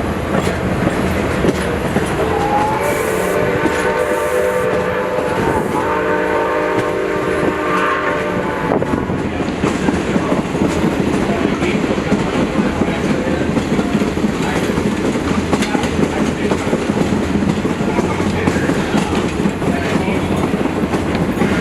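Passenger rail car rolling along the track with a steady rumble and clatter of wheels on rails, while the Milwaukee Road 261 steam locomotive's whistle blows ahead from about three to nine seconds in, in two long blasts.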